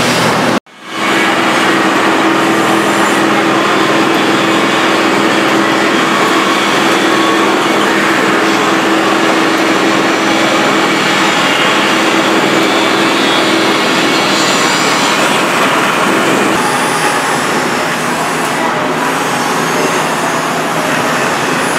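Rotary drum compost sieve (trommel screen) running: its drive motor and the turning perforated steel drum make a steady, loud mechanical noise as compost tumbles through the mesh. The sound breaks off briefly just under a second in.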